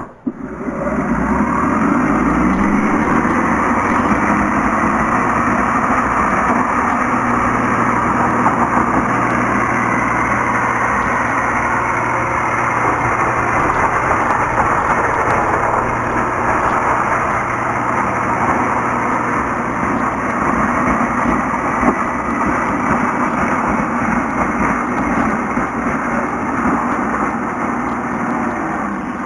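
Craftsman 60V battery-powered electric chainsaw spinning up with a rising whine, then running steadily at full speed while cutting through bushes.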